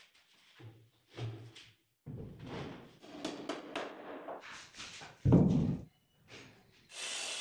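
Hammer blows knocking a plywood sofa frame together, heard in short edited snatches, with one heavy thud about five seconds in. A circular saw's steady running noise cuts in near the end.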